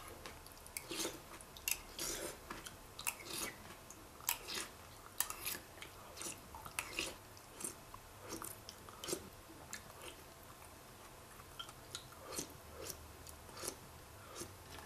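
Close-up chewing of Raisin Bran Crunch cereal with milk, with irregular short crunches.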